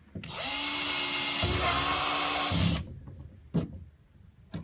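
Cordless drill with a 3/16-inch bit boring through the plastic deck of a sit-on-top kayak: the motor whines steadily for about two and a half seconds, a deeper rumble joins about halfway as the bit cuts in, then it stops abruptly. Two light clicks follow.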